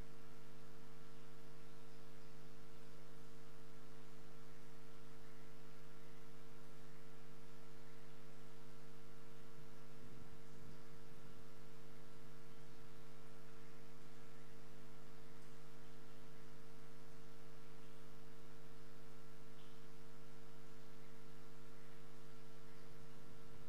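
Steady electrical mains hum in the audio feed: several even, unchanging tones over faint background hiss.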